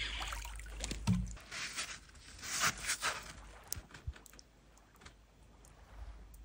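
Faint scattered rustles and clicks from handling close to the phone, with a short run of louder rustling about two and a half to three seconds in.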